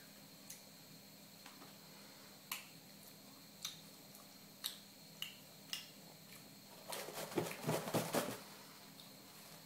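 Mouth sounds of a person eating: soft wet clicks and lip smacks of chewing, spaced about a second apart, then a louder crackly run of clicks for a second or so about seven seconds in.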